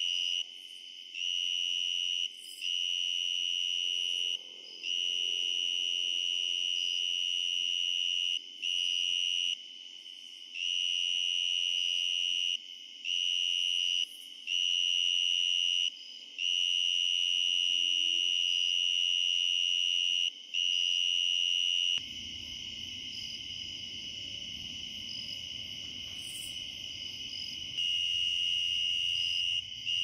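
Tree cricket singing at close range: a loud, steady, high-pitched trill held for a second to several seconds at a time, with brief pauses between. About two-thirds of the way through it turns into one unbroken, slightly quieter trill over a low rumble.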